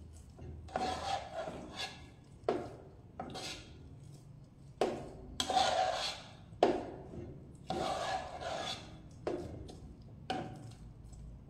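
A spoon stirring thick mashed potatoes in a pot, scraping along the pot's sides and bottom in about ten separate strokes, roughly one a second.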